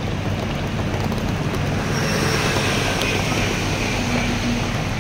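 Steady rumble and hiss with a constant low hum, the ambient noise of a cruise ferry under way.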